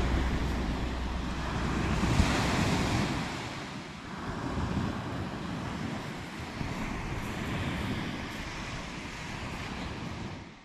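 Small waves breaking and washing up the beach, with wind rumbling on the microphone for the first couple of seconds. The sound fades out at the very end.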